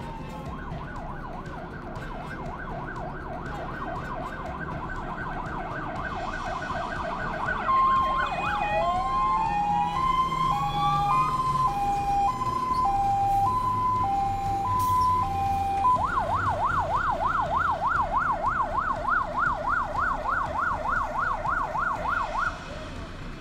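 Fire engine's siren, first a fast warble, then an alternating high-low two-tone with a rising wail sweeping over it, then the fast warble again until it cuts off shortly before the end. The truck's engine runs low underneath through the middle.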